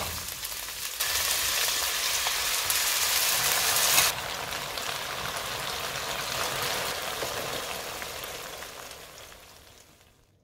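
Shishito peppers and garlic sizzling in hot oil in a frying pan, then dried squid strips frying in sauce. The sizzle is loudest for a few seconds about a second in, drops back, and fades out near the end.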